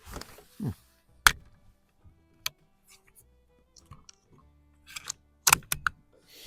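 Metallic clicks and clacks of a Daisy 2202 .22 LR bolt-action rifle's bolt and magazine being worked by hand: one sharp click about a second in, a lighter one a little later, and a quick run of clicks near the end, as the magazine fails to feed the next round.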